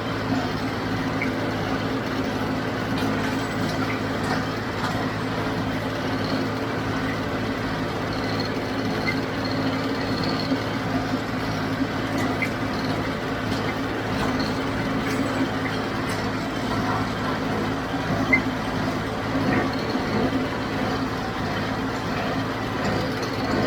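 John Deere 5055D tractor's diesel engine running at a steady speed while pulling and powering a John Deere 348 square baler through a hay windrow.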